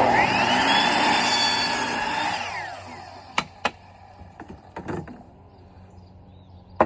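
Electric power saw spinning up and cutting through a short piece of PVC pool pipe, then winding down after about two and a half seconds. A few sharp knocks follow as the pieces are handled.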